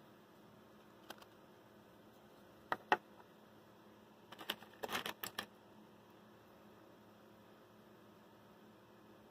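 Clicks and taps of a flameless electric lighter's casing being handled and taken apart on a wooden table: a single click about a second in, two sharp clicks near three seconds, then a cluster of clicks between about four and five and a half seconds.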